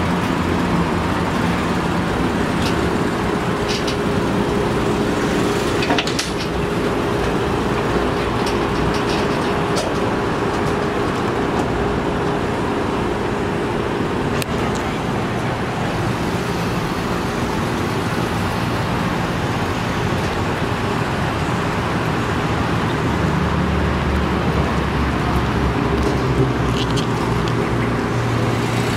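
Lifted Jeep Wrangler Unlimited's V6 engine running at low speed as it comes down off a trailer and drives off, with a few light clicks and a deeper rumble building near the end.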